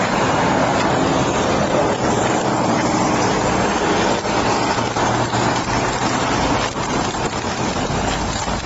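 Steady motor-vehicle noise: an even rumble and hiss of road traffic or a running engine, with no distinct events.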